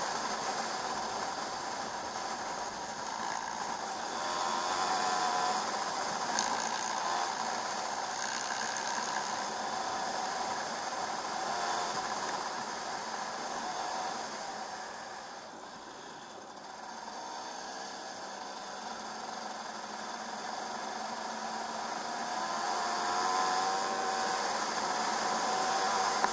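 2008 KTM 300 EXC two-stroke enduro engine running hard at speed on a gravel track, its pitch rising and falling with the throttle. The throttle eases off about halfway through, then the engine revs up again near the end.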